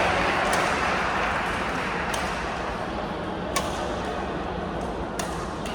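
Indoor game ambience in a gym: a steady wash of crowd and court noise, with a sharp click or slap from play on the court about every second and a half.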